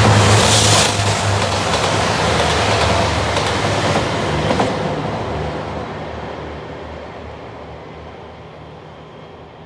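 Passenger train passing close by at speed with wheels clattering over the rails, loud for the first few seconds and then fading steadily as it moves away.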